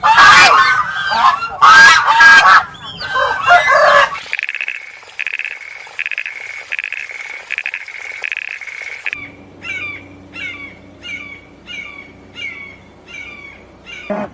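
Bird calls in three abrupt sections. First comes about four seconds of loud, harsh, goose-like honking. Then an evenly spaced series of pulsed calls, then a run of short falling chirps about twice a second over a low background hum.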